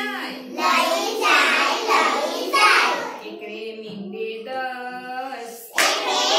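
A group of young children singing a Gujarati counting rhyme together, phrase by phrase with brief pauses between lines.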